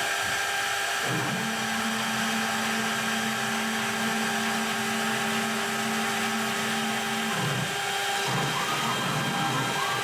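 DIY CNC router running: a steady spindle whine with its machinery noise. A lower steady motor tone joins about a second in and stops near the end, as the gantry's stepper motors drive.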